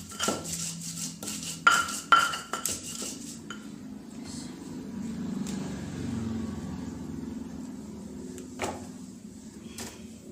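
Stone pestle knocking and grinding spice paste in a stone mortar (ulekan): quick knocks with a slight ring for about three and a half seconds. After that only a low hum remains, with one more knock near the end.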